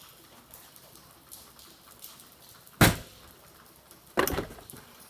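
Two sharp knocks about a second and a half apart, the second followed by a brief clatter: sockets and a plastic socket case being handled in a steel toolbox drawer.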